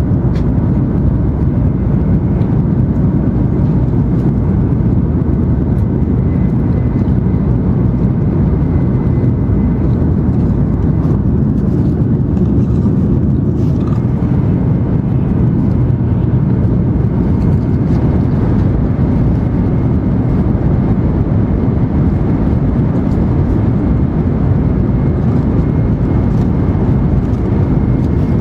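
Steady low rumble inside the passenger cabin of an N700-series Shinkansen running at high speed, with a faint steady high whine above it.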